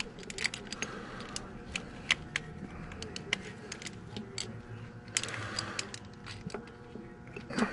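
Irregular light metallic clicks and taps as a fuel pump is worked against the gear housing of a Detroit Diesel 60 Series engine, being shifted to line its drive up with the gears inside.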